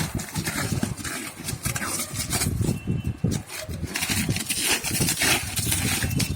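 Packaging being handled: irregular rustling, scraping and soft knocks of cardboard and plastic.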